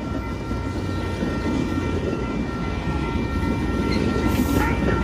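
Metra bilevel commuter cars rolling past at close range: a steady rumble of steel wheels on the rails, with faint steady high tones over it.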